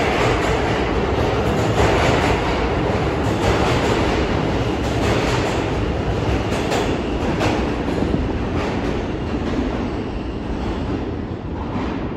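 New York City subway train (L line) pulling out of an underground station: a steady rumble of steel wheels on rail with scattered rail-joint clicks, easing off near the end as the last car leaves into the tunnel.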